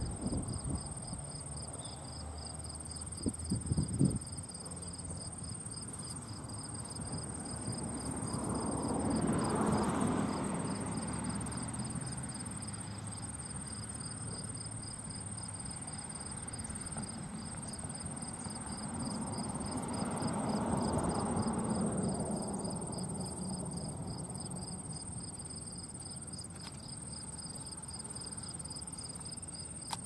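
Insects chirping: a steady high buzz alongside a fast, evenly pulsing high trill. A few sharp low thumps sound about three to four seconds in, and two slow swells of low rushing noise rise and fall around ten and twenty seconds in.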